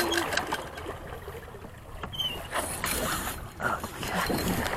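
Small sailboat under way just after tacking: wash of water along the hull with wind buffeting the microphone, and a few light knocks from the boat's gear.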